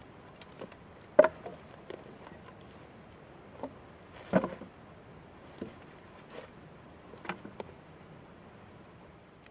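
Irregular sharp knocks and clicks: a louder knock about a second in and the loudest about four and a half seconds in, with fainter clicks scattered between.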